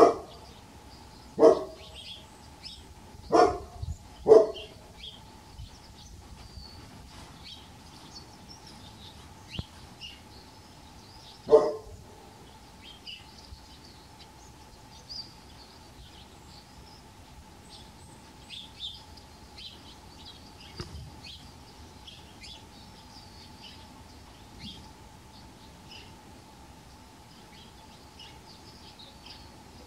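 A dog barking: four loud barks in the first few seconds and one more about twelve seconds in, with small birds chirping faintly throughout.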